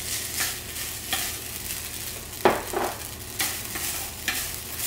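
Konjac noodles sizzling in a little olive oil in a nonstick frying pan as they are tipped in from a bowl and stirred with wooden chopsticks: a steady sizzle broken by short stirring strokes, the sharpest about two and a half seconds in.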